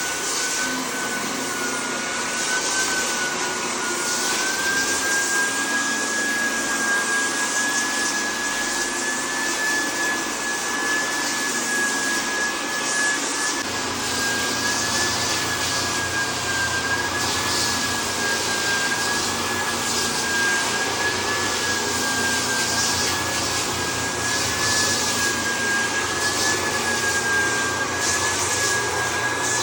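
Floor sanding machine running steadily on parquet, a constant machine noise with a slightly wavering high whine from its motor. A lower hum joins about halfway through.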